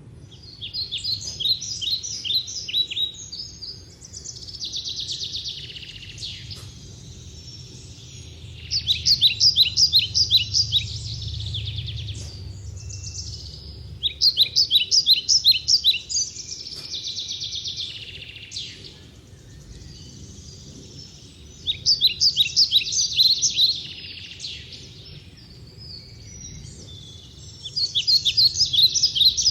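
A songbird singing: phrases of rapid high notes, each lasting a couple of seconds, repeated every few seconds and alternating with buzzier phrases.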